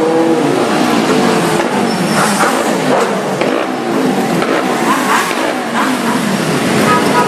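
A column of motorcycles, V-twin cruisers among them, riding past at low speed, many engines running and revving at once, their pitch rising and falling as each bike goes by.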